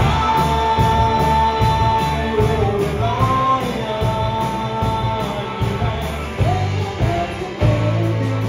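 Live rock band playing: a sung vocal line with long held notes over electric guitars, bass guitar and a drum kit keeping a steady cymbal beat.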